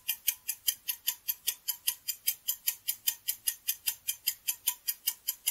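Countdown-timer sound effect: an even, rapid clock ticking, about four or five ticks a second, marking the time left to answer.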